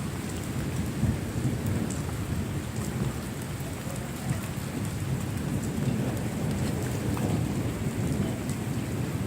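Steady heavy rain with a continuous low thunder rumble underneath and scattered drop ticks; no sharp thunderclap.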